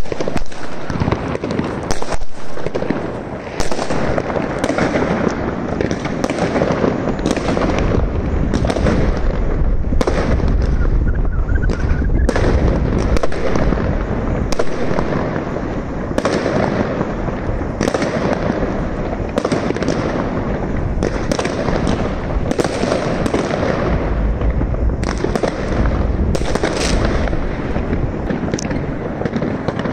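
Fireworks: a continuous rumble and crackle of many aerial shells going off, with sharp bangs standing out about once a second.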